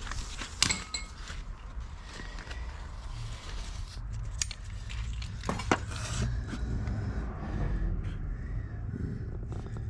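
Scattered sharp metallic clinks and rattles from handling tools or parts, a few louder knocks about a second in and again around the middle, over a steady low hum.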